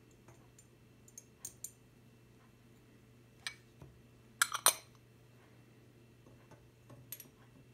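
Metal tweezers clinking against glassware (petri dish and test tube) as small pieces are picked up and dropped in: scattered light clicks, with a quick run of three louder clinks about halfway through, over a faint steady hum.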